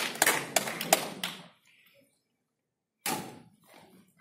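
A run of sharp hand claps ringing in a large hall, fading out about a second and a half in. After a pause, a single sharp knock with echo comes just after three seconds.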